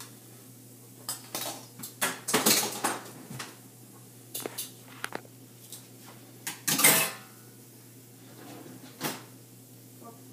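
Knife and kitchen utensils clattering and scraping against dishes in irregular bursts as a steak is cut and moved, loudest about two and a half and seven seconds in.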